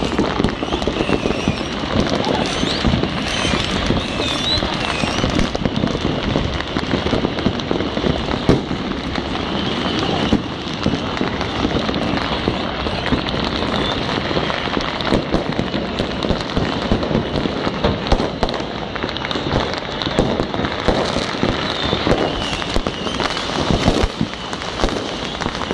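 Many fireworks and firecrackers going off at once: a dense, unbroken run of bangs and crackling with no pause.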